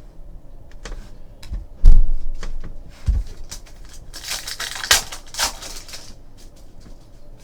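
Trading cards being handled on a table: a run of light clicks and taps, a heavy thump about two seconds in, and a stretch of rustling, sliding noise around the middle.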